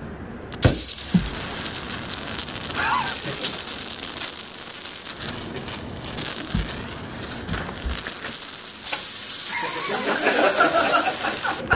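A man's mouth-made sound effect of food sizzling as it fries: a long, steady crackling hiss, with a few low thuds in the first seconds.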